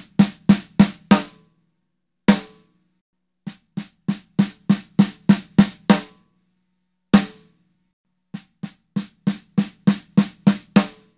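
Snare drum struck with Vic Firth 5B sticks in runs of single strokes, about three a second, each run growing louder and the first two capped by one loud hit after a short pause. The first run is played with the teardrop tip and the next with the barrel tip (5B BRL), comparing how tip shape changes the snare's sound.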